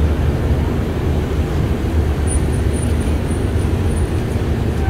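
Steady low rumble of road traffic, with no sudden events.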